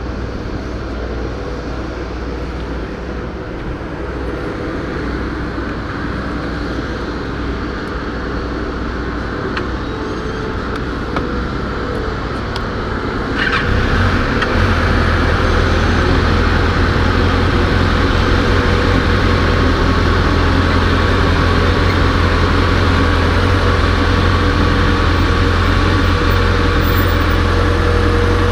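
Heavy engine of a working backhoe running steadily, growing louder about halfway through and then holding at that level.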